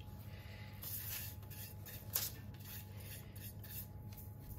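Soft, repeated swishing strokes of a bristle pastry brush sweeping dry flour off the crust of a proofed spelt sourdough loaf, a stroke every half second or so.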